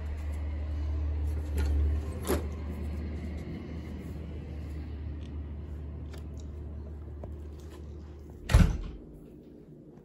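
Low, steady vehicle-engine rumble that fades away over several seconds, with a short click about two seconds in and a loud heavy thump near the end.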